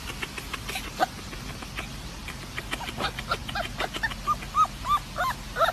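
Puppy yipping: a quick run of short, high, rise-and-fall whining yelps starting about four seconds in, after faint rapid ticking.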